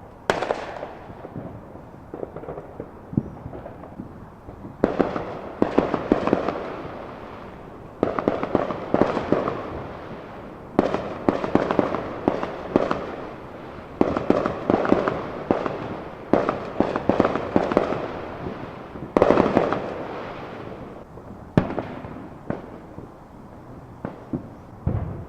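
Small consumer fireworks and firecrackers going off: rapid strings of sharp cracks and pops in clusters, a new volley every two to three seconds, each dying away before the next.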